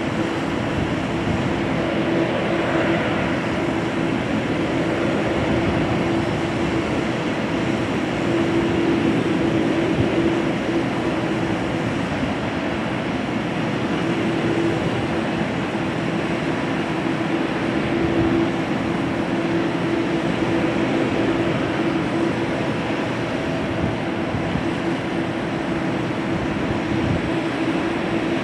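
Jet airliner engines running at an airport: a steady rumble and hiss with a constant low hum, with no clear rise or fall.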